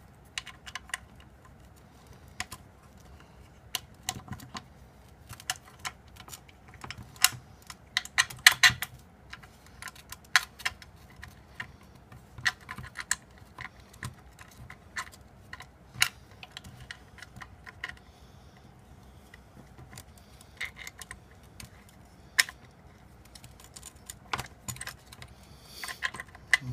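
Irregular small metal clicks and taps of machine screws, a screwdriver and aluminium spacers being handled while the screws are worked into a motor mount in a tight space.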